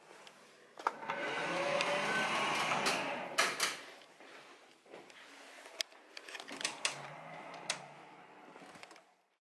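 A glass door clicks open, followed by a steady rushing noise for about two and a half seconds as the person steps outside. Then come a few sharp clicks and taps from handling and footsteps. The sound cuts off just before the end.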